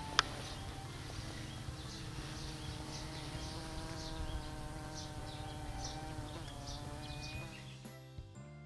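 A flying insect buzzing steadily close by, its pitch dropping about six and a half seconds in before it fades out, with short high chirps over it.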